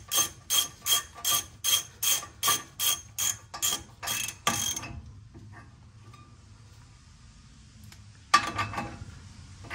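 Hand ratchet wrench running the spindle nut onto a front disc-brake hub and its wheel bearings, the ratchet clicking in quick strokes, about three a second, which stop about four and a half seconds in. A single sharp metal clink follows near the end.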